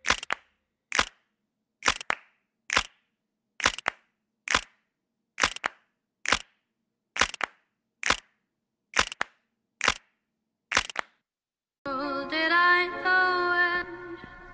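Sharp clicks repeating about once a second, each followed closely by a softer click, about thirteen in all. They stop about eleven seconds in. About a second later a wavering musical tone with many overtones comes in, loud at first and then fading.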